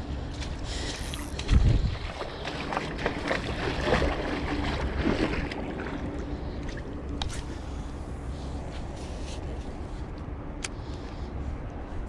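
A steady low engine hum with wind buffeting the microphone. A loud, short thump comes about a second and a half in, followed by a few seconds of rustling and light clicks from handling.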